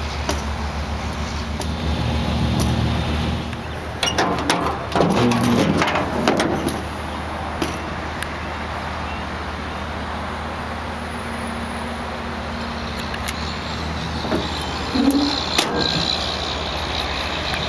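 1989 GMC Sierra pickup's engine idling steadily, heard at the rear of the truck. About four seconds in the tailgate is unlatched and lowered with a few metal clunks and rattles, and a smaller knock comes near the end.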